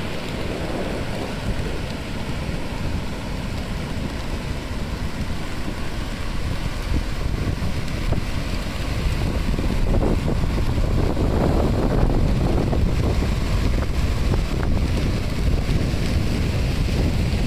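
Strong wind buffeting the microphone over the steady rush of rough, wind-driven surf breaking on the beach, whipped up by a typhoon. The noise grows a little louder about ten seconds in.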